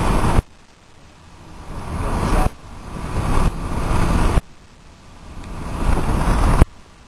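Wind and road noise of a moving car. It cuts off sharply about every two seconds and then swells back up over the next second or two.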